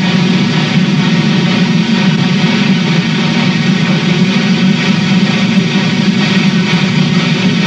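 Norfolk & Western articulated steam locomotive hauling a freight train, a steady heavy rumble without pauses.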